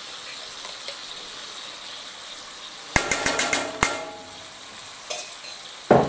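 Ground breakfast sausage sizzling softly in a nonstick skillet, with a quick run of about six metallic clinks about three seconds in and a louder knock near the end as spoons and seasoning containers are handled.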